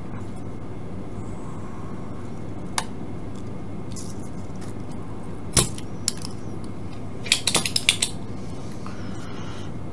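Desoldering with a spring-loaded solder sucker and soldering iron: a sharp snap about halfway through, then a quick run of small clicks and clinks a couple of seconds later, over a steady low hum.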